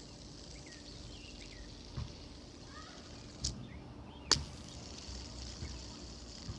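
Faint steady background with a few sharp clicks, the loudest about four seconds in, and some faint short chirps.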